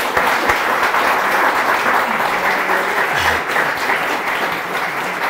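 A group of people applauding steadily, a round of congratulatory clapping.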